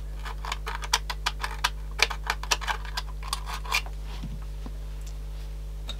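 Irregular light clicks and scratches of a small tool working at the walkman's corroded battery contact, stopping about four seconds in. A faint steady low hum runs underneath.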